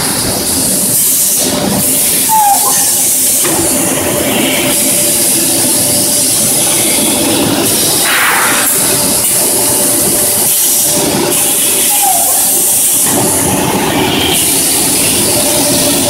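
Circle edge-deburring and washing machine for stainless-steel discs, running with steady loud mechanical noise and a high hiss. A brief harsher surge comes about eight seconds in, and there are two short squeaks.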